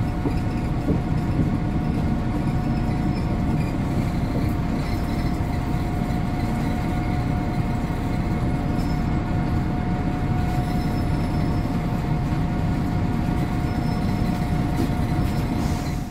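Inside an Alexander ALX300-bodied MAN 18.220 single-deck bus on the move: its six-cylinder diesel engine running steadily under a heavy rumble of road and body noise, with a thin steady whine above it.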